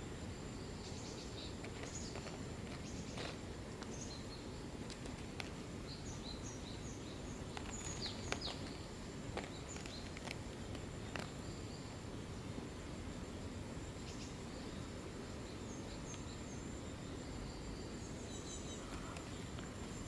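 Faint outdoor background: a steady low rumble with brief high-pitched chirps and a few light clicks scattered through, over a thin continuous high tone.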